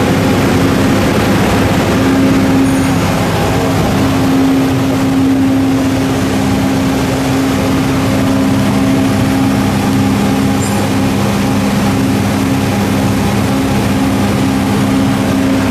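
Steady drone of running machinery: a low hum with two held tones over a broad rush of noise, unchanging in loudness.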